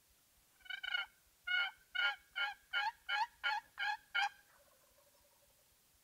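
Owl hooting in the barred-owl rhythm, 'who cooks for you, who cooks for you-all': about nine loud hoots, one or two then a run of seven, each dropping in pitch at its end, closing with a fainter, lower drawn-out note. It is an owl locator call, used to make a roosted turkey gobble.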